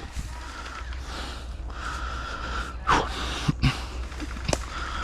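A person breathing hard over a steady low rumble, with a few sharp clicks about three and a half to four and a half seconds in.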